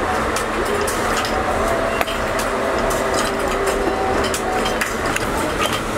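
Steady workshop background noise with faint voices and scattered clicks, and one sharp knock about two seconds in.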